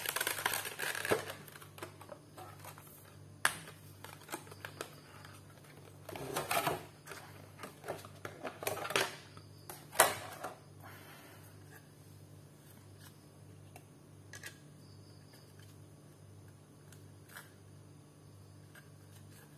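Small clicks, taps and handling noises of an SSD being fitted into a laptop's hard-disk caddy, with one sharper click about ten seconds in, over a low steady hum.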